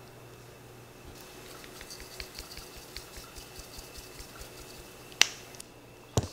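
Pepper mill grinding black pepper onto a dish, a run of small crunching clicks about five a second. About five seconds in, a sharp knock as something is set down on a hard counter, the loudest sound, then a duller knock near the end.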